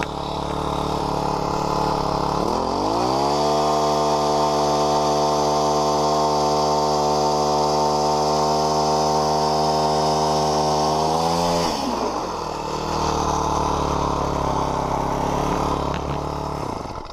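Small engine idling, then revving up about two seconds in and holding a steady high speed for about nine seconds before dropping back to idle.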